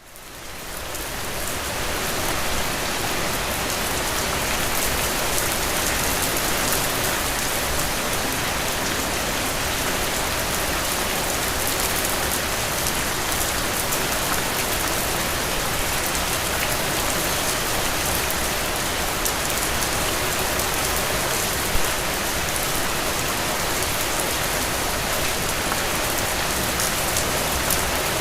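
Steady rain falling, a dense even patter of drops that fades in over the first couple of seconds, with one slightly sharper drop or tap about three-quarters of the way through.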